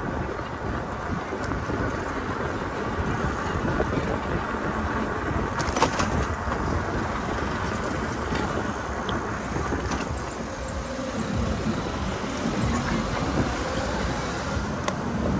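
Wind buffeting the microphone over the noise of a bicycle being ridden, with a sharp click about six seconds in.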